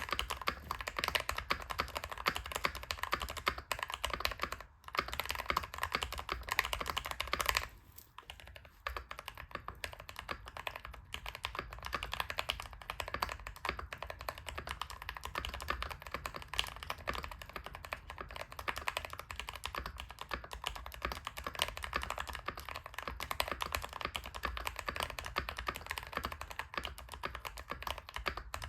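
Fast typing on a Keychron K2 Pro mechanical keyboard: a dense, continuous stream of key clacks, broken by short pauses about five and eight seconds in.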